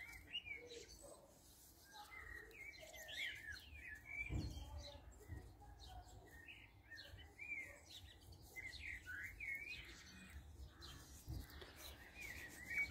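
Faint birdsong: many short, quick chirps and warbles from garden birds, with a soft thump about four seconds in.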